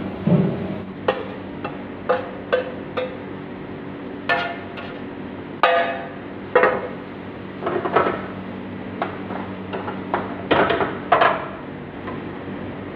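Steel ladle clanking and scraping against a wok as rice is tossed and stir-fried, a string of irregular metal knocks, some ringing briefly, over a steady hum.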